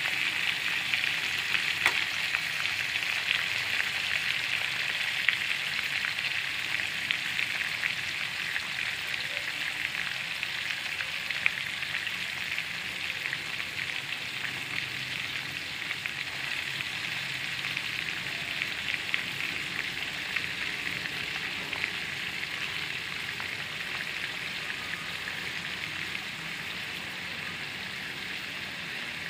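Pork liver pieces frying in hot oil in a pan: a steady sizzle dotted with many small crackles, easing off slightly as it goes.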